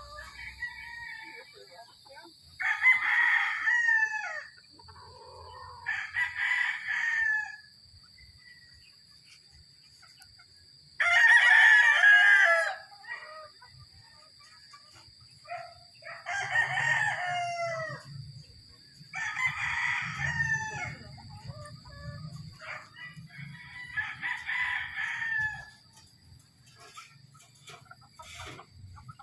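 Caged gamecock roosters crowing in turn: about seven separate crows of a second or two each, the loudest about eleven seconds in.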